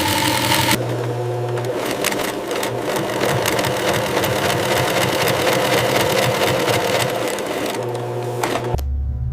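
Sewing machine running at a fast, steady stitch, with an abrupt change in its sound about a second in and a sudden switch to a different, lower hum near the end.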